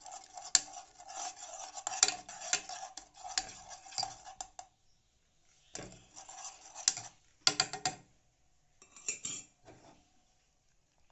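Metal spoon stirring and scraping round a metal saucepan of hot milk coffee, mixing in the coffee: steady scraping and clinking for the first four or five seconds, then three short bursts of clinks.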